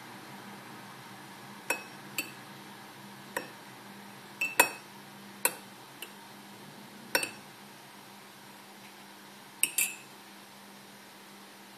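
Metal teaspoon stirring tea in a ceramic mug, clinking against the inside of the mug about ten times at uneven intervals, over a faint steady low hum.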